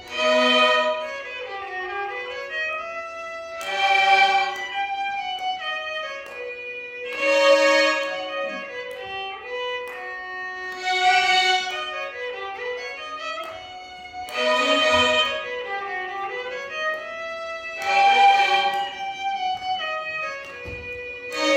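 Ensemble of violins playing a Carnatic melody in unison, the music swelling to a loud accent about every three and a half seconds.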